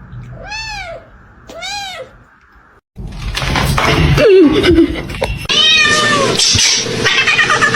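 A kitten meowing, two high arching meows about a second apart; after a short break about three seconds in, louder cat cries, one sliding down in pitch, over rustling and clicking noise.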